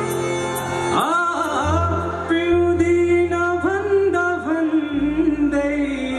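Male vocalist singing live into a microphone, backed by a band with guitar. The voice comes in about a second in and holds long, sliding notes over steady chords and bass.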